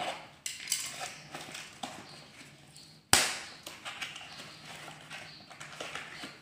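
Plastic packaging crinkling and tearing as it is cut and pulled open by hand. About three seconds in comes a single sharp knock, the loudest sound, as the knife is put down on the hard floor.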